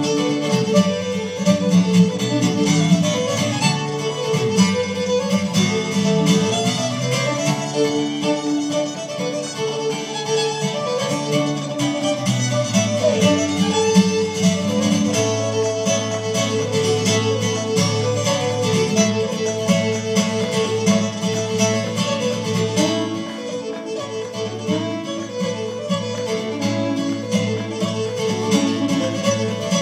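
Fiddle and acoustic guitar playing an Irish reel: the fiddle carries a run of rapid melody notes over steadily strummed guitar chords.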